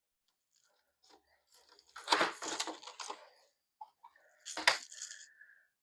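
Rustling and clattering of plastic being handled: a busy stretch about two seconds in and a sharp clatter near the end.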